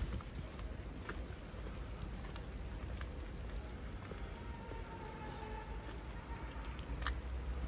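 Rain falling steadily, with scattered drops tapping close by and a couple of louder taps, over a low rumble.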